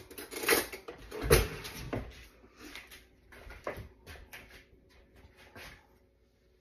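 Rummaging in a kitchen cupboard for canning jar rings: a run of knocks and clatters, loudest in the first two seconds, thinning out and stopping about six seconds in.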